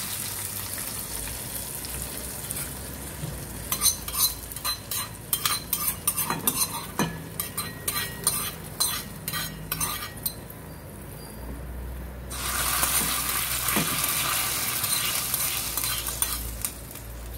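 A spoon scrapes and taps out a small frying pan of hot coconut-oil tempering (mustard seeds, onion, red chilli, curry leaves) into a pot of tomato curry, giving many quick clicks through the middle. The oil sizzles as it meets the gravy, loudest as an even hiss near the end.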